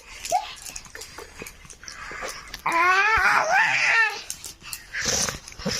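A baby crying out once: a wavering, quavering wail of about a second and a half near the middle, with fainter fussing noises around it.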